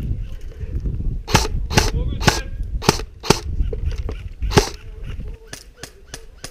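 Airsoft rifle firing separate single shots: six sharp snaps spread over about three seconds, then a few fainter shots near the end.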